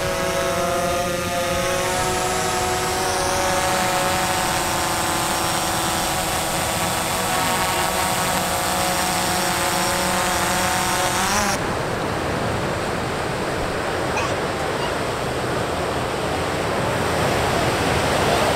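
A quadcopter drone hovering, its propellers giving a steady whine of several pitched tones. About eleven seconds in this cuts off abruptly to surf breaking on the shore.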